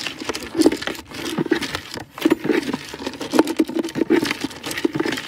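A hand stirring wet feed pellets and hay in a plastic bucket: irregular rustling and scraping with many small clicks and knocks.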